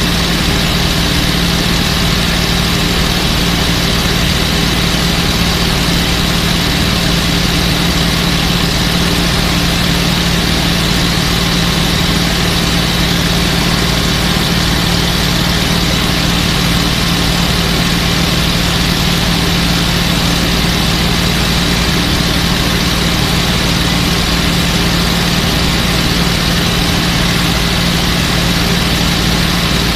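P-51 Mustang's liquid-cooled V-12 piston engine running steadily in level flight, heard loud from inside the cockpit, with no change in pitch or level.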